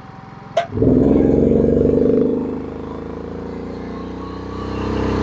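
A sharp click, then the GENMAX GM9000iED inverter generator's engine, running on propane, speeds up and runs loud as a 7,200-watt heater load comes on. The engine eases off slightly and then climbs again near the end as it works at its rated output.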